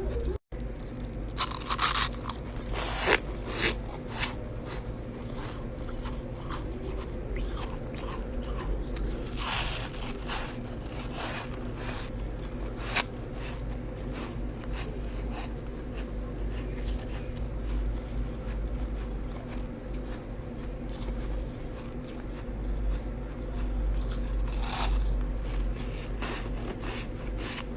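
Chest-freezer ice being bitten and crunched between the teeth, in scattered clusters of sharp crunches, loudest about two seconds in, around ten seconds and near twenty-five seconds. A steady low hum runs underneath.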